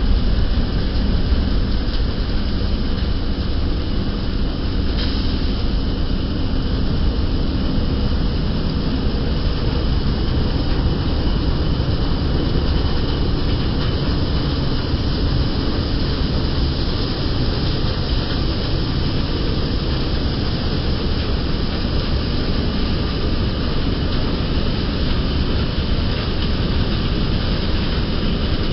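Stationary wheat thresher running steadily while wheat stalks are fed into it: a loud, even, continuous mechanical noise.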